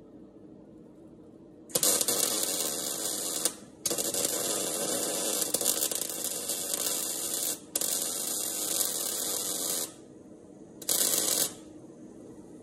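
MIG welder arc crackling as a steel sill panel is welded onto a car body. It comes in four runs with short pauses between them, the last one brief.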